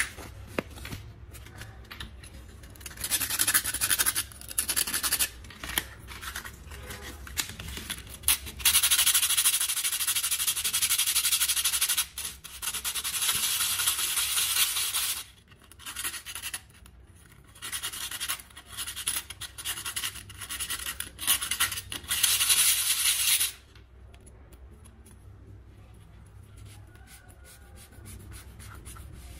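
The domed bottom of an aluminium drink can being rubbed on 240-grit sandpaper: a rasping scrape in spells of several seconds with short breaks, stopping a few seconds before the end.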